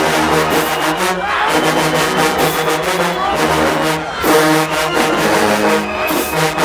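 Marching band playing loudly: the brass section holds low notes over regular drumline hits.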